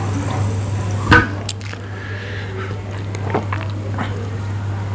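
Carbonated cola poured from a plastic bottle into a glass, the pour ending about a second in, followed by soft small clicks as the glass is lifted and sipped from near the end.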